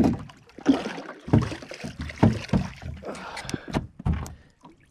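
Irregular thumps and knocks on a small skiff's deck and hull as the angler moves about bringing a redfish aboard on the line.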